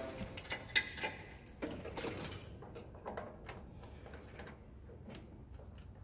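Light clicks and small metal rattles of a camlock dust cap being handled and fitted onto a lubrication pump's camlock fill fitting. They are most frequent in the first couple of seconds and become sparse, faint ticks after that.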